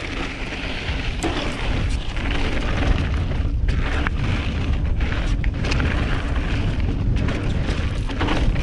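Wind buffeting an action camera's microphone while a hardtail mountain bike rolls over a dirt trail, a steady rumble with a few knocks and rattles from the bike over bumps.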